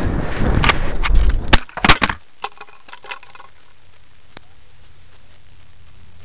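Wind rushing over the onboard camera's microphone as a 1/3 scale I.Q.S.Y. Tomahawk model rocket comes down under its parachute, then two loud impacts about a second and a half in as it hits the ground, followed by a few faint clicks and rattles as the airframe settles.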